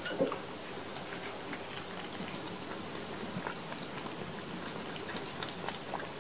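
Kittens lapping milk from a saucer: a steady stream of small, irregular wet clicks over a low hiss, with one brief louder sound right at the start.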